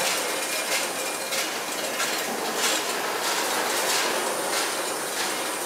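Ammunition factory floor: loading machinery running as a steady din, with many small metallic clinks and rattles and a thin high whine.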